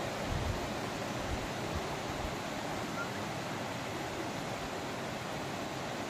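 Steady rush of river water flowing down from a waterfall, with a few faint low thuds in the first second.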